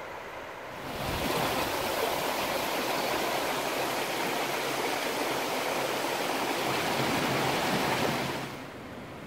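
Rushing water of a stream's whitewater rapids, a steady loud rush. It swells up about a second in and falls back to a quieter rush near the end.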